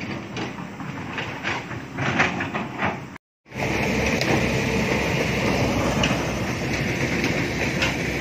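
Hydraulic excavator engine running, a steady mechanical rumble with a constant high hiss. Before it, a brief gap at a cut, and short irregular knocks and rustles.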